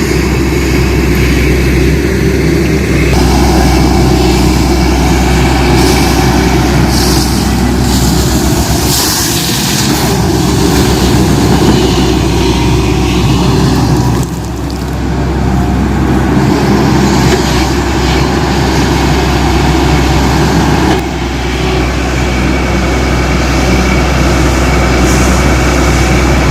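JCB 210 excavator's diesel engine running steadily under load, with a strong low drone, while the machine works. The level drops suddenly and briefly twice, about fourteen and twenty-one seconds in.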